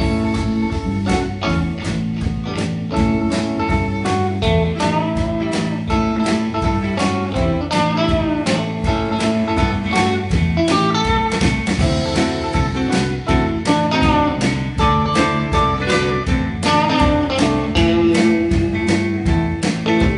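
Live blues band playing an instrumental intro: guitar over bass and drums with a steady beat.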